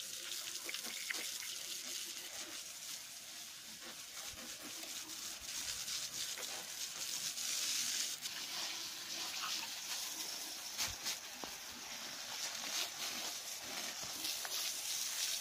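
Water spraying from a garden-hose nozzle onto a finned engine cylinder barrel and cylinder head as a steady hiss, rinsing the oil grime off the parts.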